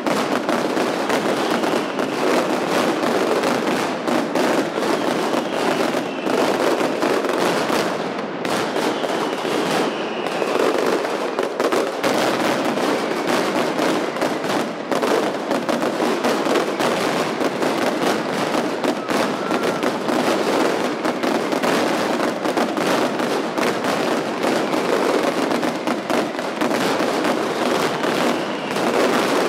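Mascletà firecrackers going off in a dense, unbroken barrage of rapid cracks and bangs, very loud.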